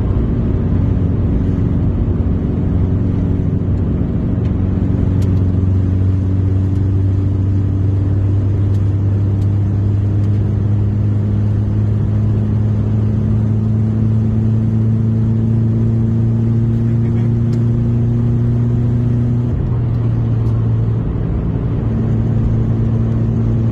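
Subaru car engine running steadily under way, its drone rising slowly in pitch, with a brief change in note about 20 seconds in. The engine runs on a crankshaft fitted with a repair sleeve to stop a rear main seal leak.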